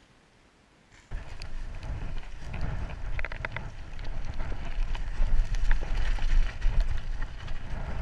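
Near silence for about a second, then wind buffeting the microphone of a camera on a mountain bike descending fast, with the rumble of the tyres and rattling of the bike over a rough gravel trail.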